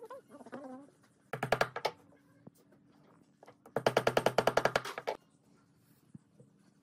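Claw hammer rapidly tapping wooden dowels into a glued wooden block. There are two runs of quick, sharp blows: a short one about a second and a half in, and a longer, louder one about four seconds in.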